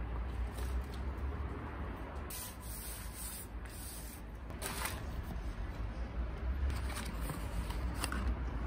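Gloved hands rubbing and brushing loose potting soil off a plant pot, a run of scratchy swishes over a steady low rumble. A cardboard box is handled near the end.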